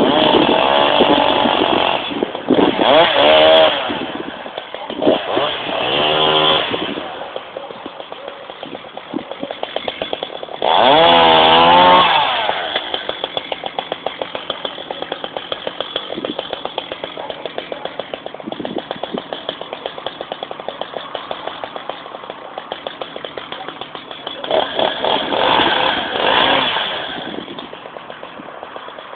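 Chainsaw revving hard in four bursts of one to three seconds while it cuts into a horse chestnut tree. Between the bursts it drops back to an idle with a steady, regular putter.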